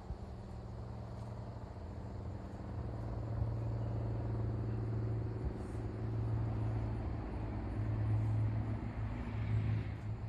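A steady low machine hum, an engine or motor running, slowly growing louder.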